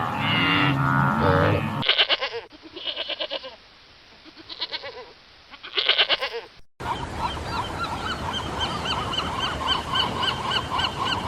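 A run of farm-animal calls cut together: loud honking calls, then a quieter stretch of rapid pulsed calls, and from about seven seconds in a steady chorus of many short, high, repeated calls.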